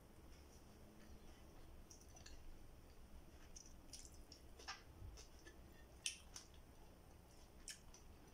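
Quiet eating sounds: chewing with scattered small mouth clicks and smacks as fried fish and rice are eaten by hand, the sharpest click about six seconds in.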